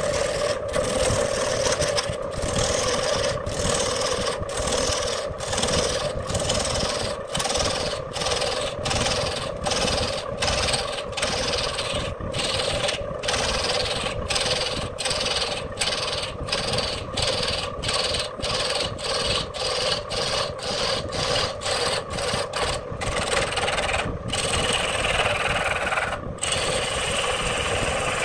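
Electric wood lathe spinning a large log while a hand-held gouge cuts into it: a steady hum under the scraping hiss of wood being shaved off. The cutting noise breaks off briefly about twice a second.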